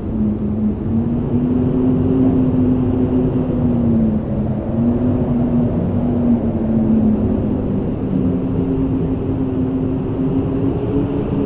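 Howling wind: a steady low rush with a moaning tone that drifts slowly up and down in pitch, and a fainter higher tone that rises near the end.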